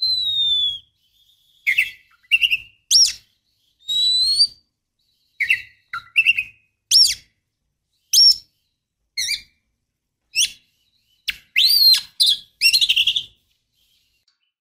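Oriental magpie-robin calling: a falling whistle, then a broken series of short chirps and clear whistled notes with silent gaps between them, bunching into a quicker run about three-quarters of the way through.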